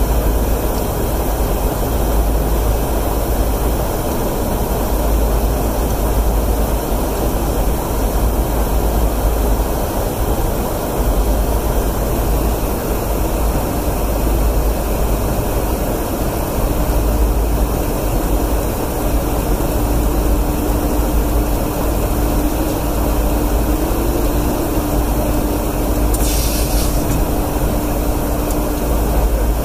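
Steady loud rumble of air and engine noise inside an aerial refueling tanker's boom operator station, heaviest in the deep bass. A faint steady hum joins about halfway through, and a short hiss comes near the end.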